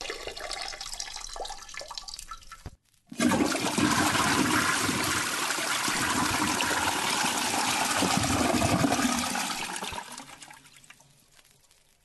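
Rushing water. It starts suddenly about three seconds in, after a brief pause, runs steadily for about seven seconds, then dies away.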